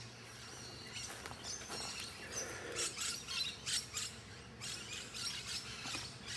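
Birds chirping and calling in the background, with light clicks and rustles as a resistivity cable's connector is clipped onto a steel electrode stake.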